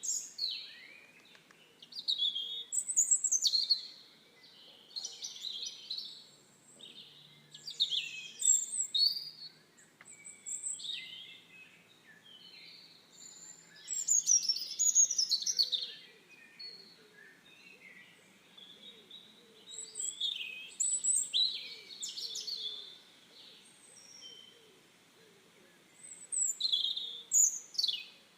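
Birdsong: high chirping and whistled phrases in bursts every few seconds, with quieter gaps between.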